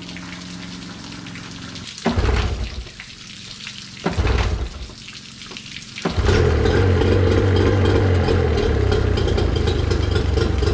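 Mercury 25 hp two-stroke outboard being pull-started on flushing earmuffs: it fires briefly and dies twice, then catches about six seconds in and keeps running steadily as a cold start. Hose water hissing through the muffs is heard before the engine fires.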